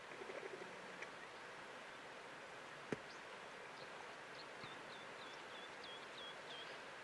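Faint bush ambience with a small bird calling a quick run of about nine short, high, hooked notes in the second half, and a single sharp click about three seconds in.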